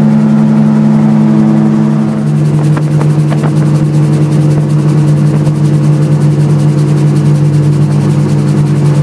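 RAF 2000 GTX SE gyroplane's engine and rotor running steadily, heard from the cockpit. About two seconds in the engine note drops to a lower steady pitch and holds there.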